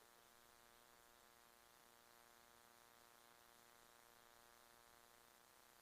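Near silence with a faint, steady buzz.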